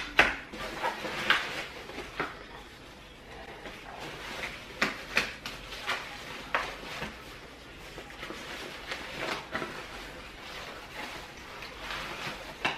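Fabric canopy of a Keenz 7S stroller wagon being handled and fitted over the wagon's frame: rustling with scattered light clicks and knocks from the frame and its fittings, about a dozen in all.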